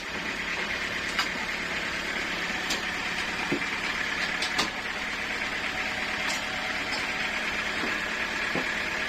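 Sawmill saw running steadily, with a few sharp clicks and knocks along the way.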